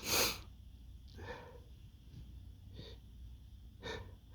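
A man's noisy breathing as an allergy sneeze tickle builds: a sharp breath right at the start, then three softer breaths about a second apart.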